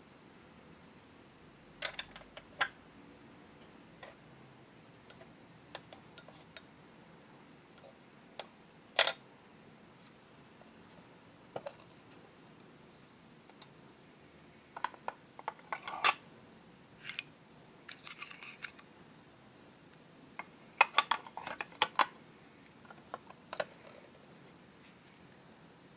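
Scattered light clicks and taps of small plastic toy kitchen pieces being handled, including a toy fridge door being opened and shut, over a faint steady hiss.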